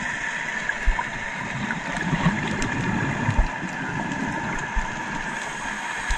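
Underwater sound of scuba exhaust bubbles rising from a diver's regulator, over a steady underwater hum, with a few dull low knocks.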